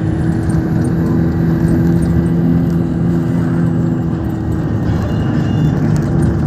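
Road vehicle running steadily, its engine holding a low, even drone under dense road noise.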